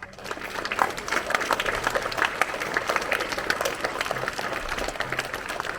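Assembled schoolchildren and teachers clapping, a dense, steady round of applause that starts suddenly.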